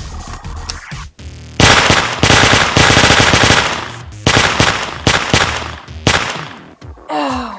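Synthetic machine-gun sound effect from a phone gun-effects app: a long rapid burst of automatic fire starting about a second and a half in, then several shorter bursts, and a short falling tone near the end.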